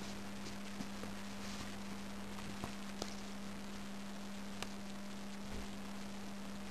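Steady low electrical hum over a background hiss, with a few faint sharp clicks scattered through it.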